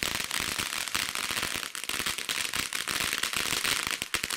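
Ground fireworks fountain spraying crackling sparks: a rapid, continuous run of small sharp pops and crackles.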